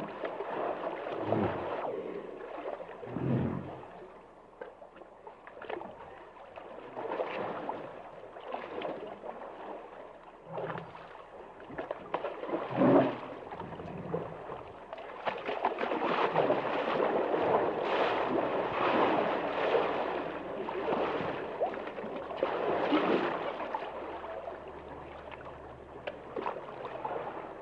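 Hippos in a river: water sloshing and gurgling in uneven surges, with a few short low sounds near the start and around the middle.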